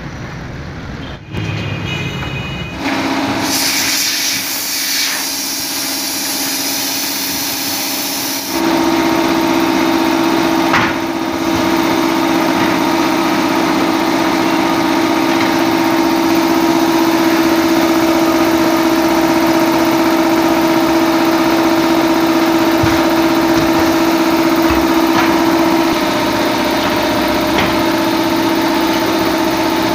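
A machine motor running with a steady hum, which gets louder and slightly higher in pitch about eight seconds in and then holds, with a few faint clicks.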